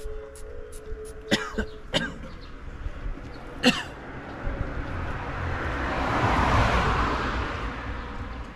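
A passing vehicle: a rushing noise that swells to its loudest about six and a half seconds in, then fades. Before it come three short, sharp sounds, the loudest a little under four seconds in.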